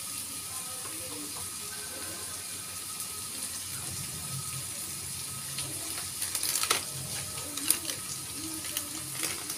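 Chopped onions, tomato and spices frying in oil in a pan, a steady sizzle with a few sharp clicks about seven and eight seconds in.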